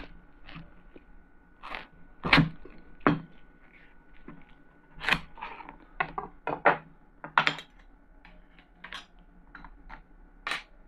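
Kitchen knife cutting through a watermelon wedge on a cutting board: irregular crunching cuts through flesh and rind and sharp knocks of the blade on the board, about a dozen in all.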